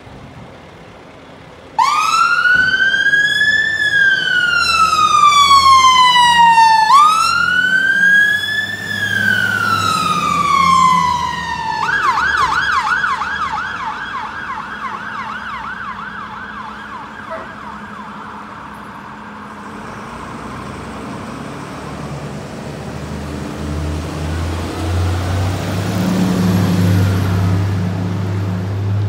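Fire engine's two-tone electronic siren switching on with two slow wails, each rising then falling, then changing to a fast yelp about twelve seconds in, which fades away by about twenty seconds. A low engine drone then grows louder near the end as the appliance passes close by.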